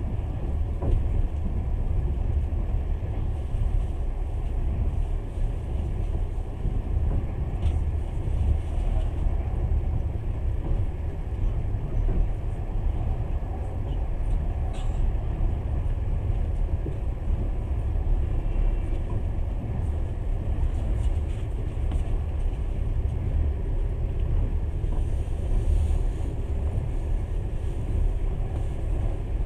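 Passenger train running at speed, a steady low rumble heard from inside the carriage, with a few faint clicks.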